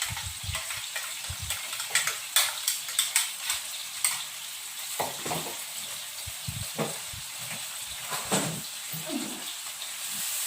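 Food sizzling in hot oil in a pan while it is stirred, the utensil clicking and scraping against the pan often in the first few seconds, then less often.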